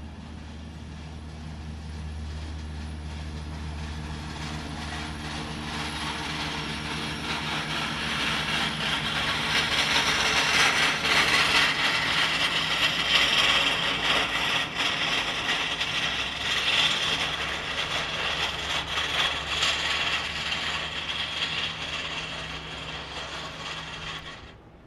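A Boeing 777's twin jet engines roar as the airliner rolls down the runway. The roar builds over about ten seconds, holds, then fades and cuts off suddenly near the end.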